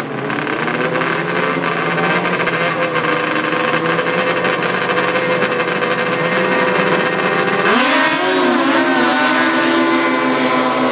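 Engines of ice drag-racing vehicles running together. About eight seconds in, one revs up sharply, its pitch rising and wavering.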